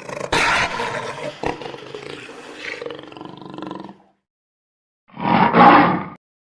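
A large animal roaring: one long roar that fades out over about four seconds, then after a second of silence a shorter, loud roar.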